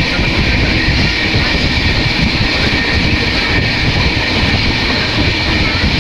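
Passenger train running: a loud, steady rumble and rush of noise with a thin high whine over it.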